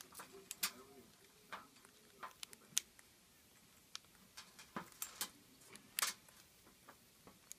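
Irregular sharp clicks and taps, about a dozen, from a young green-cheeked conure's claws and beak on the hard floor of its cage as it walks about.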